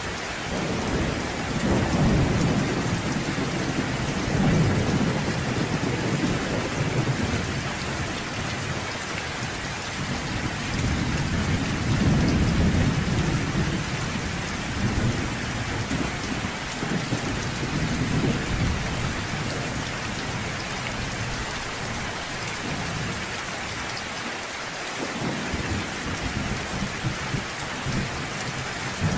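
Steady rain falling with low rolls of distant thunder that swell and fade several times, easing briefly about three-quarters of the way through before rumbling again.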